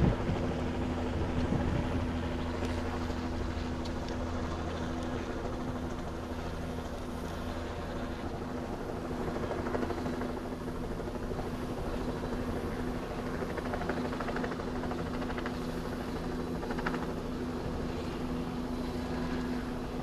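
Steady drone of a running engine holding a constant pitch, with a few knocks in the first couple of seconds.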